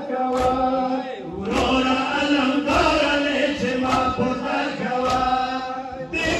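A crowd of men chanting a noha, a Shia mourning lament, with hand strikes of chest-beating (matam) landing about once a second.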